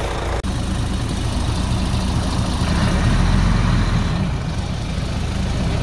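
Heavy truck diesel engine idling with a steady low rumble that swells briefly about three seconds in.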